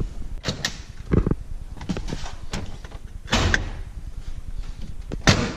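Cab door and hood hardware of a 1994 Ford F150: a series of metal clunks and latch knocks as the door is opened, the hood release under the dash is pulled and the hood is raised. There are about six knocks, the loudest past the middle and near the end.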